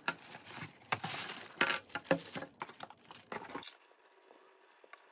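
Metal desk clamp being handled and fitted to a desktop edge: a run of clicks, clinks and knocks for about three and a half seconds, then only faint handling.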